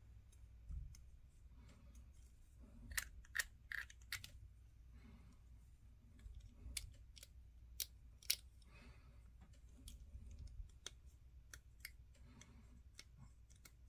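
Faint scraping and sharp little clicks of a craft-knife blade working over a small plastic miniature part, trimming it clean, in a scatter of separate strokes.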